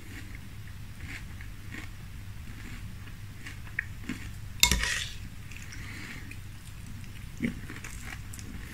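Close-miked chewing of frosted corn flakes in milk, with small clicks of a metal spoon in a glass bowl; one loud sharp clink or crunch about halfway through.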